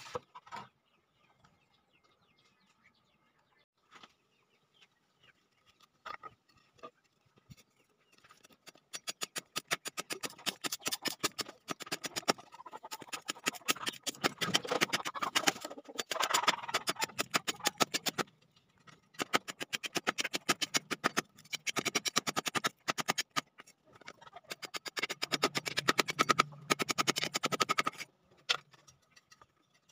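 A steel knife blade being stroked rapidly back and forth on a sharpening stone, a dense rasping scrape in runs of several seconds with short pauses. It starts about nine seconds in, after a few faint clicks.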